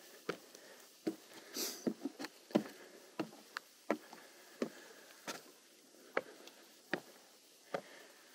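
A hiker's footsteps on a trail, steady and evenly paced at a little under one and a half steps a second, with a brief hiss about one and a half seconds in.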